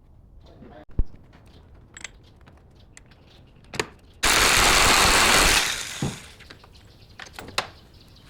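A power tool runs in one loud burst of about a second and a half, then tapers off. Sharp metal clanks and knocks come before and after it.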